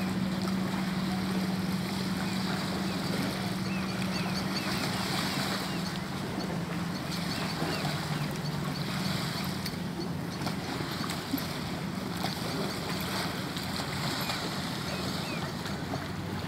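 Small waves lapping against a rocky lakeshore, under the steady drone of a boat engine out on the lake whose pitch drops slowly.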